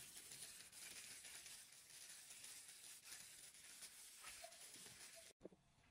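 Faint wet squishing and sloshing of egg and milk custard mixture as a gloved hand squeezes pandan leaves in a bowl. The sound cuts off abruptly near the end.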